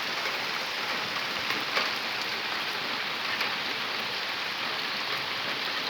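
Steady rain falling and pattering on surfaces, with faint scattered drip ticks.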